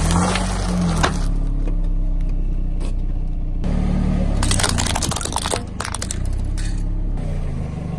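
Car tyre rolling slowly over packets of instant noodles, the dry noodles crunching and crackling under the wheel for about the first second, over the car's engine idling. About four and a half seconds in, a plastic toy lorry and trailer cracks and snaps under the tyre, a string of sharp cracks lasting two to three seconds.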